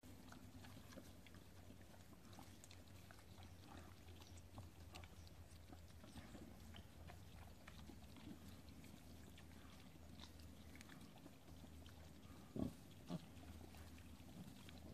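Faint snuffling and small clicks of a piglet rooting in dry dirt, with two short grunts about half a second apart near the end.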